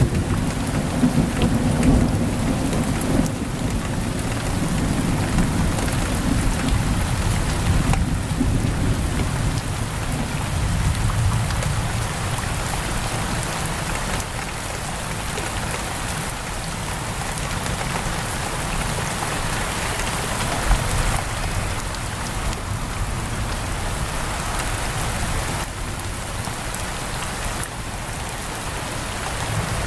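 Heavy rain pouring steadily against a window, with a low rolling thunder rumble through the first half that fades away.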